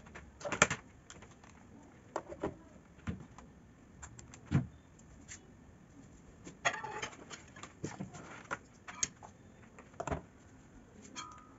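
Scattered clicks, knocks and rattles of a mains plug and its cord being handled and pushed into a socket on a power strip.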